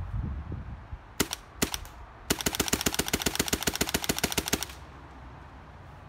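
Autococker paintball marker firing two single shots, then a rapid even string of about ten shots a second lasting about two and a half seconds. The Freeflow Caliber mini loader feeding it is very, very quiet.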